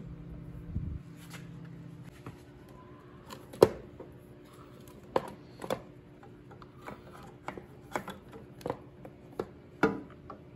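A rubber hose of a motorcycle's evaporative control system being pulled out by hand from among wiring and plastic parts: rubbing and handling noise with an irregular scatter of sharp clicks and knocks, the loudest about three and a half seconds in.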